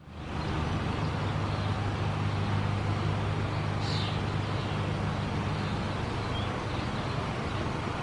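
Distant town traffic: a steady low hum of road vehicles that fades in at the start, with a brief high-pitched sound about halfway through.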